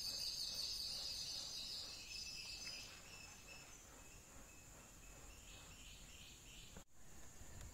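Faint background ambience with a high-pitched, rapidly pulsed chirping trill for about the first three seconds, then softer, fainter chirps.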